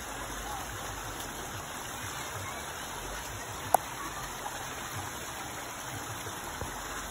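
Shallow mountain creek running steadily over rocks. A single sharp click cuts through the water sound about three and a half seconds in.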